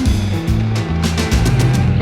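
Background music with a steady beat and a bass line changing notes every half second or so.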